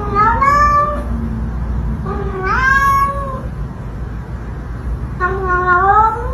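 Domestic cat meowing: three long, drawn-out meows that each rise in pitch, over a steady low background rumble.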